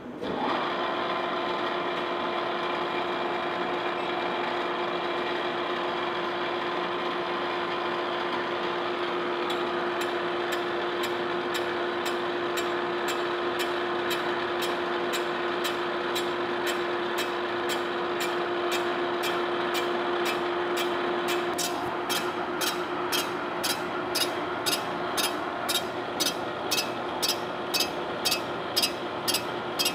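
Horizontal boring mill starting up and running with a steady gear whine, its spindle turning a fly cutter. About two-thirds of the way in a regular tick sets in, a little faster than once a second and growing sharper: the fly cutter's tool striking the cast iron table once per revolution on a light facing pass.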